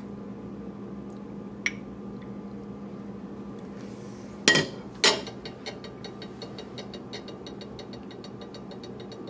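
Two sharp clinks of kitchenware, a ladle, saucepan or ceramic mug, about half a second apart just past the middle, with a fainter click earlier, over a steady low hum. After the clinks comes a faint, even ticking at about four ticks a second.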